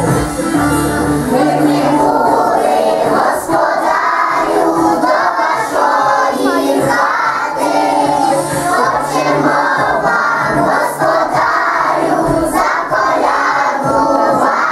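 A group of young children singing a song together in chorus over a recorded music backing track.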